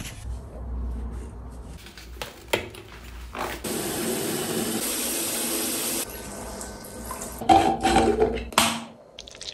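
Shower water spraying steadily onto a dog in a bathtub for a couple of seconds, then cutting off suddenly. Quieter wet handling sounds and a few short, louder sounds follow.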